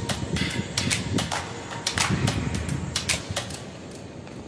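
Irregular sharp clicks and taps, a few each second, over a low rumbling noise; the clicks thin out near the end.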